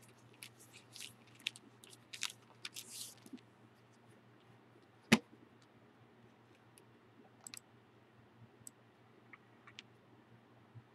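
Pages of an old Oxford Bible rustling as the book is handled and opened, a string of short crisp rustles in the first three seconds. One sharp click about five seconds in, then a few faint ticks, over a faint steady hum.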